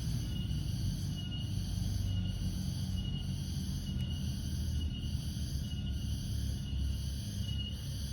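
Insects chirping steadily, with a short high chirp repeating a little faster than once a second, over a low rumble of wind or handling noise.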